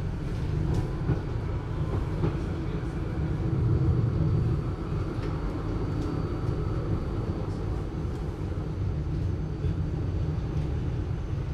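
Mainz GT6M low-floor tram running, heard as a muffled low rumble with faint steady whining tones above it.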